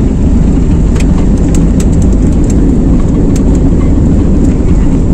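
Jet airliner on its takeoff roll heard from inside the cabin: a loud, steady engine roar and runway rumble at takeoff power, with a few sharp clicks and knocks scattered through it.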